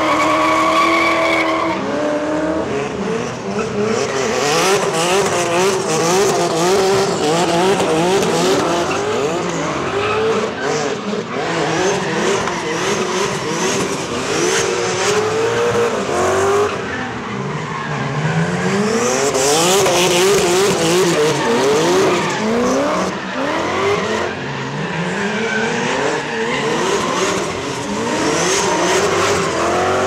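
BMW drift cars revving hard, engine pitch climbing and dropping again and again, with tyres squealing and skidding as they drift and spin donuts. The E30's naturally aspirated 4.6-litre V8 is among the engines heard.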